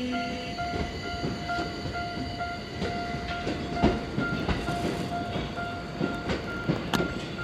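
Japanese level-crossing warning bell ringing in a steady repeating pattern while a Ginza Line subway train rolls slowly across, its wheels clacking and knocking irregularly over the crossing's rail joints, with the loudest knocks about four and seven seconds in.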